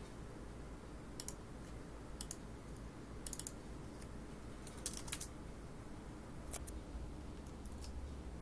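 Scattered clicks of a computer mouse, some coming in quick pairs or small clusters, at irregular intervals about a second apart, over a faint low hum.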